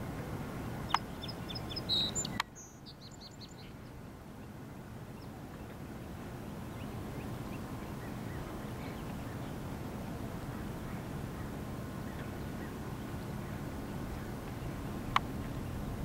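A few short, high bird calls in a quick series in the first couple of seconds, over a steady low outdoor rumble. Sharp clicks come about a second in and again just as the sound drops off suddenly, with one more click near the end.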